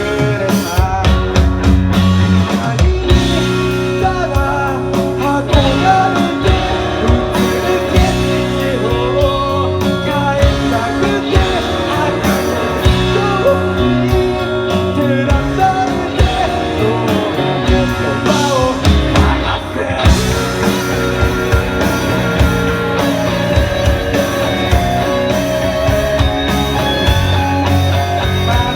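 Rock band music with guitar and a drum kit: a steady beat under a wavering lead melody.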